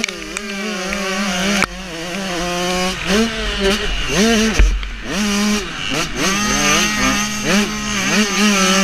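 Motocross bike engine heard onboard, revving up and dropping off over and over as the throttle is worked through corners and straights. A heavy low thump comes about halfway through.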